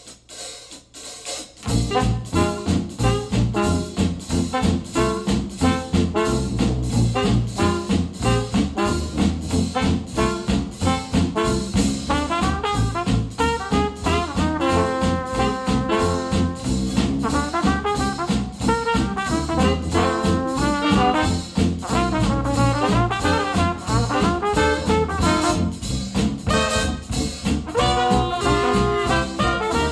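Jazz music played back through Polk Audio TSi 200 bookshelf speakers driven by an IOTAVX SA3 integrated amplifier. After a brief gap the track starts a little under two seconds in, with a steady beat and held melody notes.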